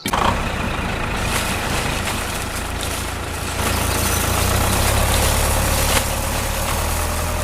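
Tractor engine running steadily with a deep hum. It grows louder about three and a half seconds in, and there is a single click about six seconds in.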